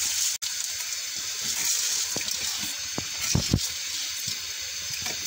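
Water at a rolling boil in a cooking pot, a steady bubbling hiss, as dry rice is tipped in. A few soft low thumps a little after three seconds in.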